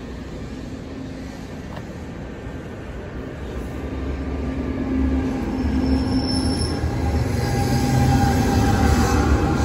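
NJ Transit commuter train rolling past on the platform track, its wheels rumbling on the rails and growing louder from about four seconds in as the electric locomotive at the rear comes by. Steady humming tones join the rumble in the second half, with a thin high-pitched wheel squeal about six seconds in.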